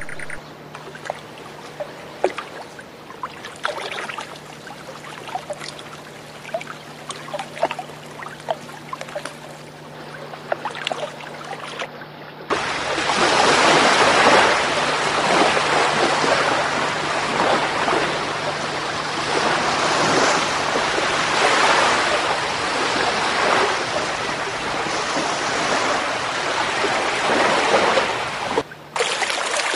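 Rushing water: a loud, even hiss of waves or a stream that cuts in suddenly about twelve seconds in. Before it comes a quieter stretch of scattered faint clicks over a steady low hum.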